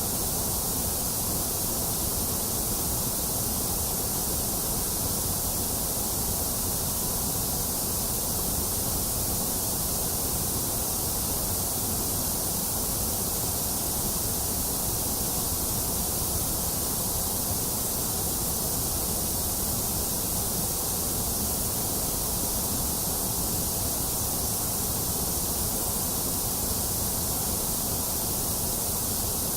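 Electronically generated white noise: a steady, unchanging hiss with a full low end and a bright top, somewhat hollowed out in the middle.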